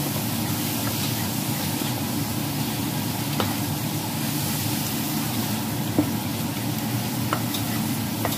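Thick glutinous rice flour batter being stirred in a stainless steel bowl: a continuous wet churning with a few sharp clinks of the utensil against the metal, over a steady low hum.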